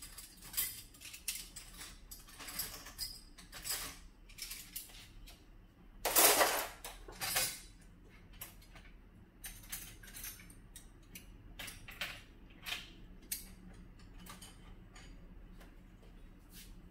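Dishes and cutlery clinking and knocking as breakfast things are cleared away in a kitchen, with a louder clatter about six seconds in.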